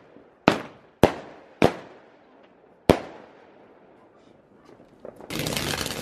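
Four sharp firework bangs from aerial bursts, each trailing off in an echo. About five seconds in, a ground fountain firework starts spraying, with a dense, steady crackling hiss.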